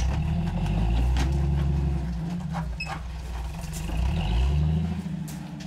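Jeep engine revving in low gear as it crawls up rock ledges. It surges twice, in the first two seconds and again about four seconds in, with the pitch rising and falling, and there are a few sharp knocks.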